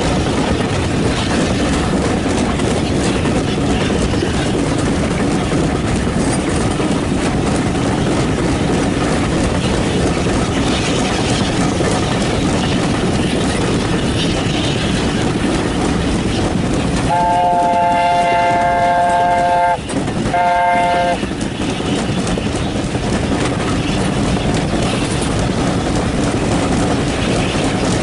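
Steam train running, with a whistle sounding several notes at once: one long blast a little past halfway through, cut off, then a short second blast.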